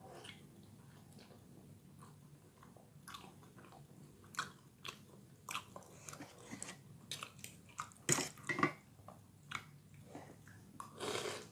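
A person chewing a mouthful of bakso, meatball soup with noodles, with intermittent wet mouth smacks and clicks; a louder pair of smacks comes about eight seconds in.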